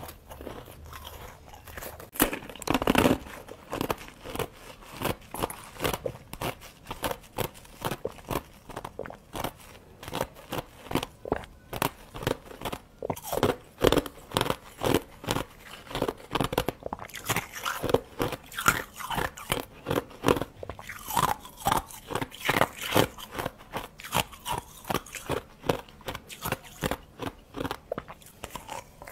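Close-miked crunching and chewing of ice: soft freezer frost and frozen red ice domes bitten in quick, crisp strokes, with the loudest crunch about three seconds in.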